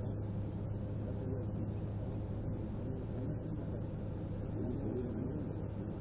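Steady low hum of a stopped patrol car, picked up by its dash camera microphone, with faint, indistinct voices in the background about two-thirds of the way in.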